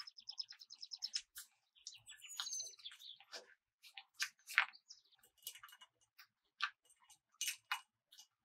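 Plastic piping bag crinkling and crackling in sharp irregular clicks as gloved hands fold and twist it, with a few short high squeaks, one a quick rapid stutter in the first second and one falling in pitch around two seconds in.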